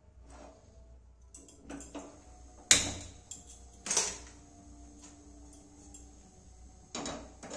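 Metal knocks and clicks as cookware is handled on a steel gas stovetop, the loudest a bit under three seconds in and another about a second later, then a few more near the end, with the gas burner lit and burning between them.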